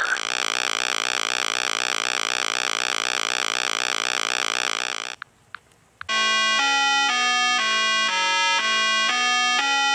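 Electronic synthesizer sounds: a buzzing tone warbling evenly for about five seconds, then, after a brief pause, a simple electronic melody of stepped notes, about two a second.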